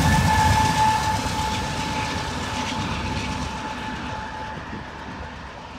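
BNSF diesel freight train rumbling and clattering away, fading steadily as it goes. A steady high whine runs through it and dies out about four and a half seconds in.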